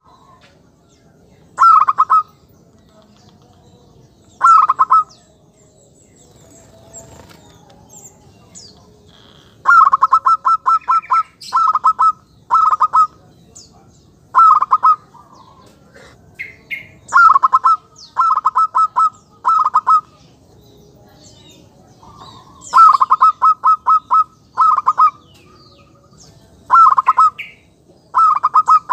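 Male zebra dove (perkutut) singing a clear, crisp decoy call: repeated short bursts of rapid staccato cooing notes, some phrases single and some run together, with pauses of a second or more between them.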